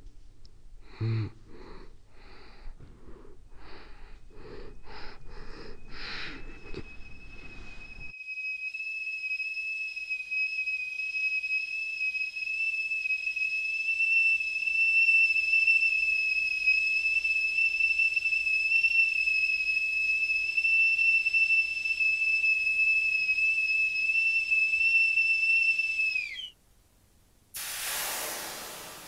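Stovetop kettle whistling at the boil: one steady, high whistle with a fainter overtone. It starts about six seconds in, after a run of short pulses, and cuts off suddenly with a slight downward bend a few seconds before the end. A burst of hiss follows and fades.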